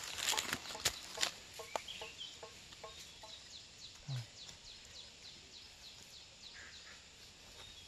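Chickens calling: a row of short clucks, then a run of high, falling peeps at about four a second, with one low call partway through. A few rustles or knocks sound in the first second.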